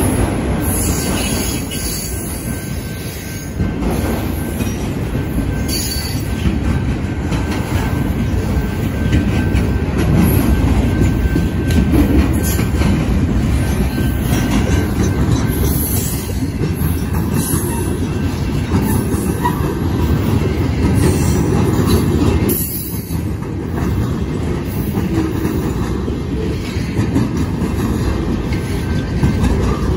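Loaded freight cars of a passing train rolling by close: a steady heavy rumble of steel wheels on rail, with high-pitched wheel squeal coming and going.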